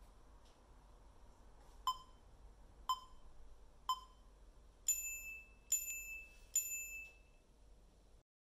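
Countdown timer tones: three short, lower beeps a second apart, then three longer, higher tones in quick succession marking the end of the timed stretch.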